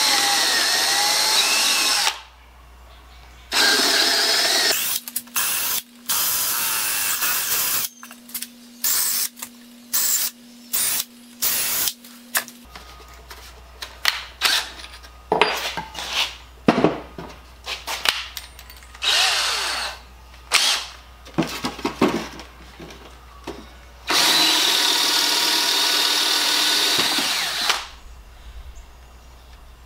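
Cordless drill boring into wood, run in repeated spells: long steady runs at the start and near the end, with many short trigger bursts in between. It is drilling out stripped screw holes in a wooden board so they can be plugged.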